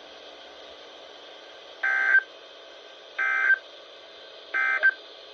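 Three short, identical bursts of SAME digital data tones from NOAA Weather Radio, evenly spaced about a second and a half apart, over a faint steady radio hiss. This is the End of Message code that closes the weekly test transmission.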